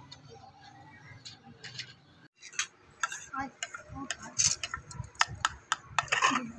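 Metal spoons clinking and scraping against ceramic plates in a quick, irregular run of sharp clicks, starting suddenly a little over two seconds in after a quiet stretch.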